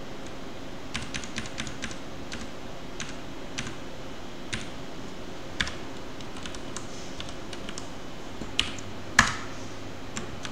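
Computer keyboard typing: scattered, irregular keystrokes with pauses between them, and one louder key press about nine seconds in.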